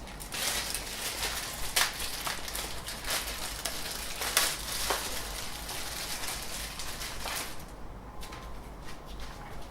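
Rustling and irregular clicking of hands handling the 3D printer's power cable and plug as it is plugged in. About eight seconds in, the handling stops and the sound drops to a faint background with a thin steady tone.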